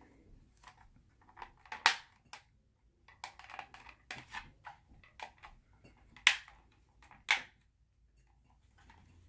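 Sharp clicks and knocks of a drone's hard plastic shell being pressed together and handled, with softer rustling between; three loud clicks stand out, about two, six and seven seconds in.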